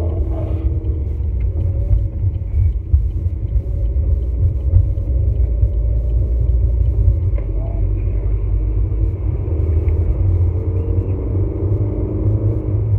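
Steady low road rumble of a vehicle's engine and tyres while driving, heard from inside the cabin.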